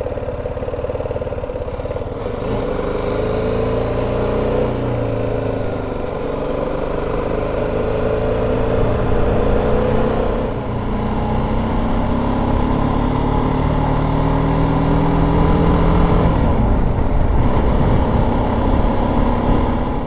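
Motorcycle engine pulling up through the gears: its pitch climbs steadily, falls at a gear change about halfway through, climbs again, and falls again near the end, over a low rush of wind.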